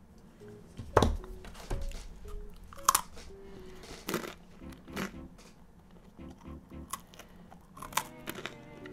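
Crunchy chewing close to a microphone, a string of sharp crackling bites and crunches, over quiet background music with steady held notes.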